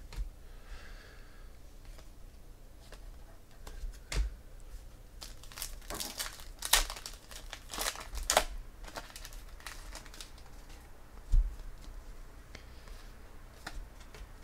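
A foil trading-card pack, a 2017 Panini Chronicles baseball pack, being torn open and crinkled by hand, the crackling loudest in the middle. A couple of soft thumps of handling come before and after it.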